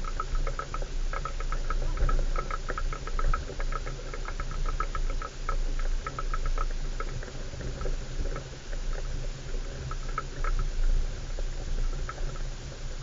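4x4 engine running with a steady low hum as the vehicle drives slowly along a rutted, waterlogged track, overlaid by rapid, irregular clicking and rattling that thins out after the first half.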